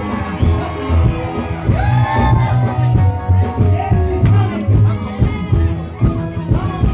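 Live gospel music over a PA: a man singing into a microphone over a loud backing of deep bass and a steady drum beat.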